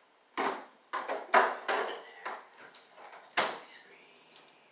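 A string of knocks and clatters from a refrigerator-freezer being opened and things inside being shifted about while a tub of ice cream is taken out. The loudest knock comes about three and a half seconds in.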